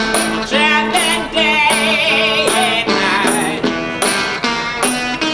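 Blues played on an electric guitar through a small amplifier, with bending, wavering notes over a steady beat. A high jingling accent falls about every 0.8 seconds.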